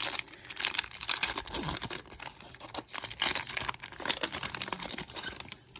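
Crinkly wrapper of a trading card pack being torn open and crumpled: a dense, uneven crackle of many small clicks that stops near the end.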